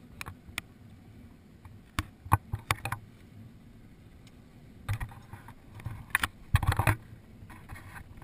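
Irregular clicks, knocks and rattles of fishing tackle and gear being handled on a boat, in short clusters about two seconds in, around five seconds and a louder run near the end.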